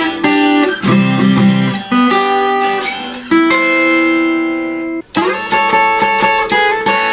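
Acoustic guitar fingerpicking a slow, gentle melody. About three and a half seconds in, a chord is left to ring. It breaks off briefly near five seconds, and then the picking resumes.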